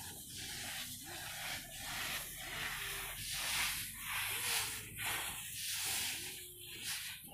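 Loose boiled paddy grains rustling in repeated swishes, about two a second, as they are swept with a grass broom and stirred through by bare feet.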